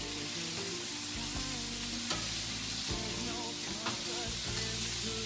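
Steaks and sausages sizzling on a barbecue hotplate: a steady hiss with a couple of light clicks, and music playing underneath.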